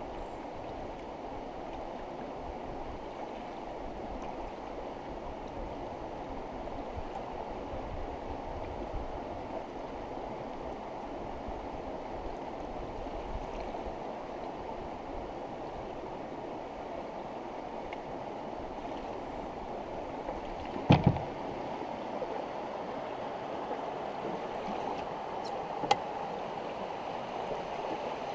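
Steady rush of river water running over shallow rocky riffles around a moving canoe. About two-thirds of the way in there is a loud, sharp knock, and a couple of fainter clicks follow.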